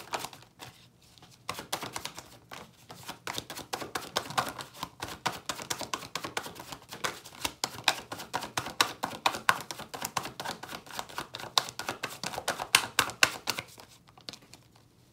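A deck of tarot cards being shuffled by hand: a fast, uneven run of flicking clicks that starts about a second and a half in and stops near the end.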